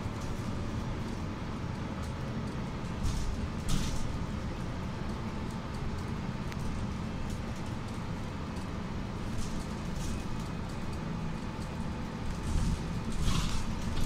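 Mercedes-Benz Citaro C2 city bus driving, heard from inside the passenger cabin: a steady low engine and road rumble, with a few short hissing rattles about three seconds in and again near the end.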